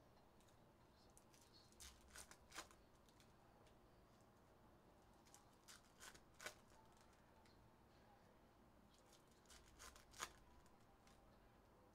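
Foil wrappers of 2024 Topps Cosmic Chrome baseball card packs rustling and crinkling as they are handled, in three short bursts a few seconds apart.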